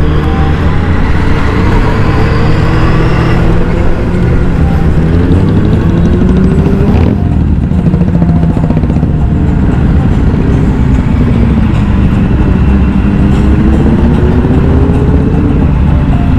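Several superbike engines running together on the road. Their pitch rises as they accelerate about four seconds in and again near the end.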